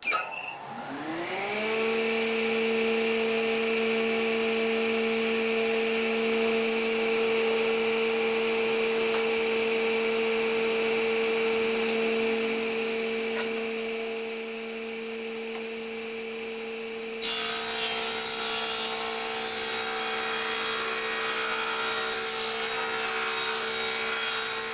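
A woodworking machine's electric motor starting up, its whine rising in pitch over about a second and a half, then running at a steady speed. About seventeen seconds in a rougher, rasping noise joins the whine as wood is cut.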